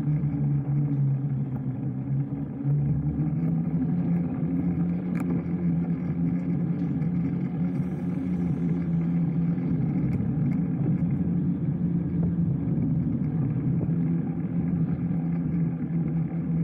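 Steady low droning hum of the bike in motion, picked up by the camera riding with it. It dips briefly about two seconds in, and there is a single click about five seconds in.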